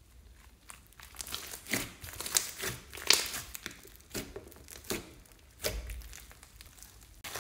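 Fluffy purple slime with small beads mixed in being stretched, folded and pressed by hand: crackling, squishing and popping of trapped air. It comes in a run of irregular bursts after a quiet first second.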